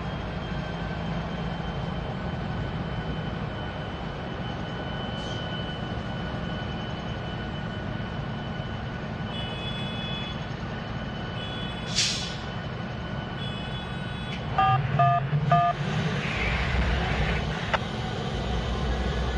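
Diesel locomotive engines running with a steady low rumble and a faint whine. A sharp burst of air hiss comes about twelve seconds in, a few short loud beeps follow a couple of seconds later, and the rumble rises near the end.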